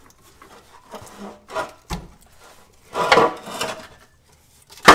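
Rusty steel T-bar crossmember of a Subaru WRX scraping and knocking against the underbody as it is slid out by hand: a sharp knock about two seconds in, a longer scrape around three seconds, and a loud clunk at the very end.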